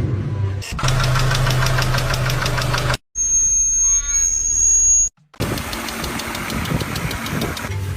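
Short car-engine noise clips cut one after another. First an engine running with a fast, regular ticking over a steady low hum. Then, about three seconds in, about two seconds of a high steady whine with repeated chirps, then engine noise again.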